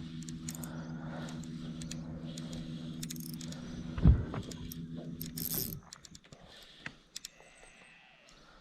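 A steady motor hum that cuts off a little under six seconds in, with small metallic clicks and rattles throughout and one loud knock about four seconds in.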